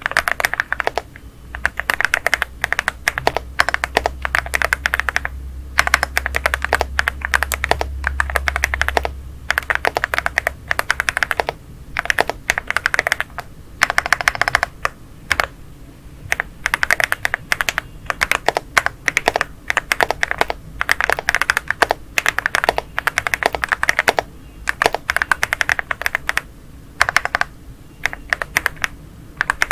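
Typing on a Leobog Hi75 aluminium mechanical keyboard fitted with Leobog Rocklee linear switches: quick runs of keystrokes broken by short pauses.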